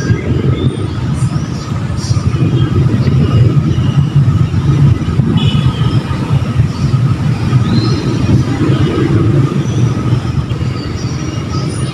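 Loud, steady low rumble of outdoor background noise, with faint scattered higher sounds over it.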